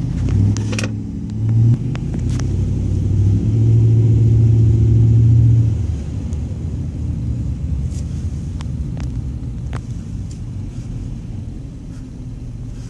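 Car engine and road rumble heard from inside a moving car: a low engine hum that swells for a couple of seconds and eases off about six seconds in, with a few light clicks.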